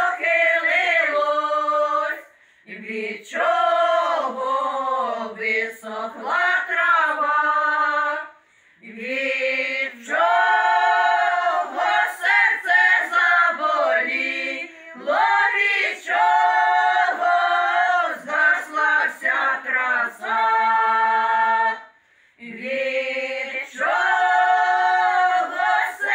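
A women's folk vocal ensemble sings a Ukrainian folk song a cappella, several voices in harmony. The singing comes in long held phrases, with a few brief pauses between them.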